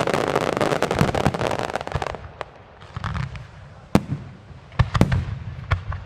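Aerial firework shells bursting. A dense run of crackling bangs for about two seconds, then single sharp reports spaced out, each followed by a low rolling echo.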